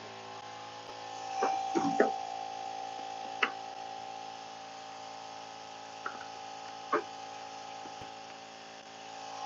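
A few short knocks and clunks as a homemade plastic stand and a football helmet are set down and shifted into place on a cardboard box: a cluster in the first two seconds, one more about three and a half seconds in, and lighter ones around six and seven seconds. A steady hum runs underneath.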